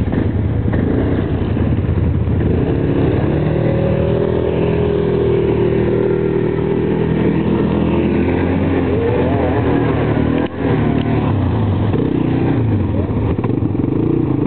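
Yamaha Grizzly ATV's single-cylinder engine revving up and down as the quad churns through slush, water and breaking ice, struggling for traction, with splashing water. Its sound dips briefly about ten seconds in.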